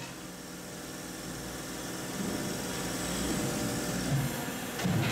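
Hydraulic plate shear idling, its pump motor giving a steady low hum while a steel plate is lined up; a louder burst of machine noise starts right at the end.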